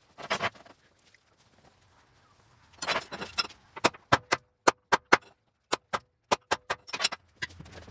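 A hammer tapping on steel on a steel welding table: about a dozen sharp metal taps, a few tenths of a second apart, with a faint ring, after a short scraping of metal about three seconds in.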